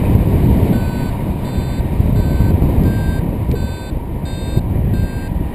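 Paragliding variometer beeping steadily, about one and a half short beeps a second starting just under a second in: its climb tone, the sign of the glider climbing in a thermal. Heavy wind rush on the microphone underneath.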